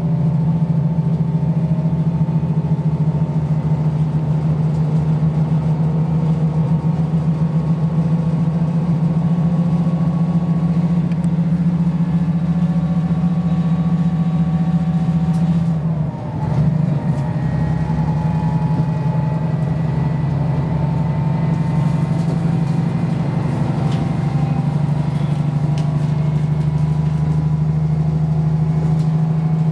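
KiHa 54 diesel railcar under way, heard from inside the passenger cabin: a steady low engine drone with fainter running noise and whines above it, dipping briefly about halfway through.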